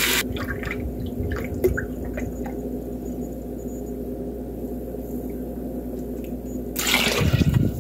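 Chicken stock pouring from a carton into a measuring cup, with soft trickling and a few drips. A louder hissing rush comes about seven seconds in.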